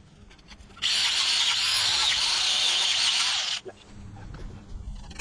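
A power tool running in one burst of about three seconds, a loud hissing noise that starts and cuts off abruptly.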